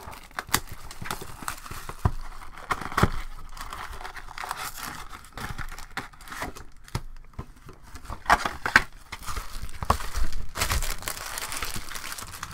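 Hockey card pack wrappers being torn open and crinkled, with scattered sharp clicks from handling; the crinkling is densest near the end.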